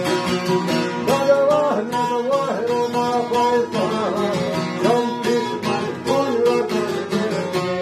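Albanian folk ensemble playing: a bowed violin with plucked long-necked lutes and a mandolin strumming along, and a man's voice singing a wavering melody from about a second in.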